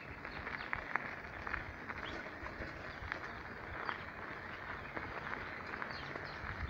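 Irregular crunching and clicking of travel over a dirt-and-gravel path, over a steady outdoor hiss, with faint high bird chirps now and then.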